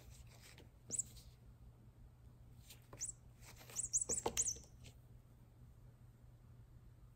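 Short high squeaks from a small toy mouse as a kitten paws at it: one about a second in, another near three seconds, then a quick run of four around four seconds.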